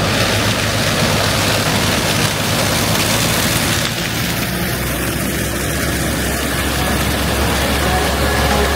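Fendt Ideal combine harvester running in corn with its Geringhoff 12-row chopping corn head: a steady, heavy engine drone under a broad mechanical hiss, changing slightly about four seconds in.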